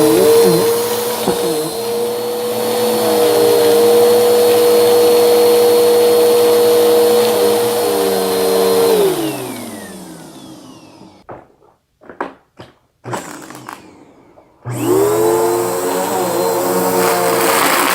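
Bissell vacuum cleaner motor running at a steady pitch, then switched off about nine seconds in and winding down. After a few clicks in the quiet, it is switched back on and spins up again.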